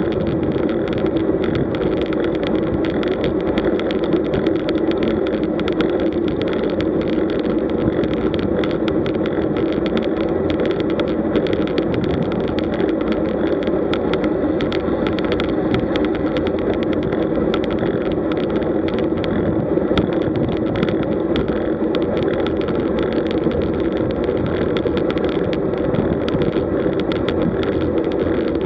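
Steady rush of wind and tyre-on-asphalt noise from a road bike moving at speed, picked up by the bike's own camera, with many small ticks and knocks from the ride throughout.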